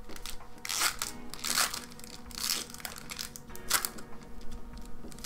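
Crinkling and rustling of booster-pack wrappers and trading cards being handled, in several short bursts.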